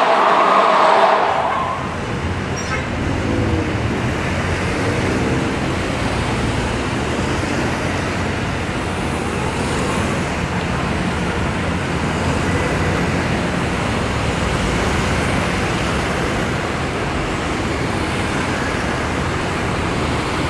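A fire engine's siren wail fades out in the first second or two. It is followed by the steady rumble of city street traffic, with vehicle engines running.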